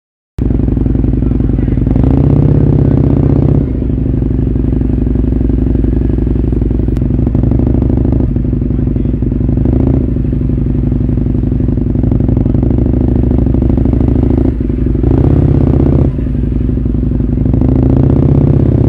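Husqvarna Nuda 900R parallel-twin motorcycle engine running at low speed in traffic. Throttle openings swell it louder about two seconds in, again about two-thirds of the way through, and near the end. The sound cuts in abruptly about half a second in.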